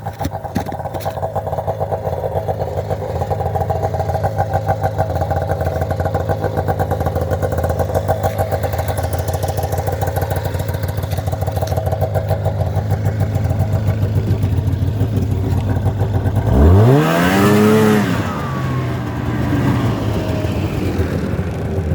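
Z440 snowmobile's two-stroke engine running steadily. About three-quarters of the way through it is reved once: the pitch shoots up and drops back, the loudest moment, before it settles back to idle.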